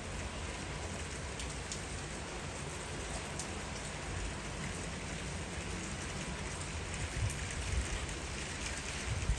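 Steady rain falling, an even hiss with scattered drop ticks, over a low rumble that bumps up a few times near the end.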